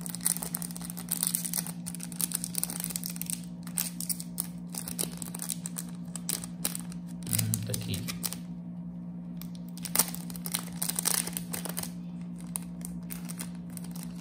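Thin clear plastic bag crinkling and crackling in irregular bursts as fingers handle it and work it open, over a steady low electrical hum.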